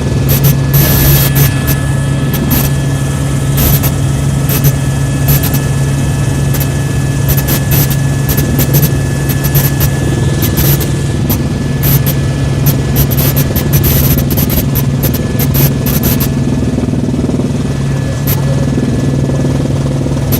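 Helicopter in flight, heard from aboard: the engine and rotor make a loud, steady droning hum, broken by frequent short crackles.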